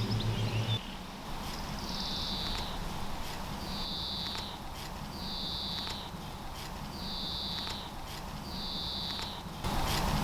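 A high-pitched chirp repeating about once every second and a half, each chirp under a second long, over faint background noise; a low hum stops about a second in.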